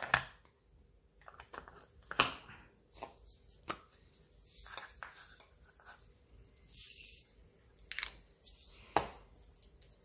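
Tabletop crafting handling: a plastic ink-pad case clicking shut and being set down on a cutting mat, with scattered light knocks and taps and a short rustle of a plastic sheet. Two brief hisses come near the middle.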